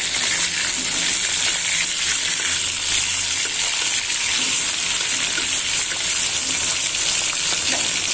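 Rohu fish pieces frying in hot oil in a wok: a steady sizzle with many small crackles.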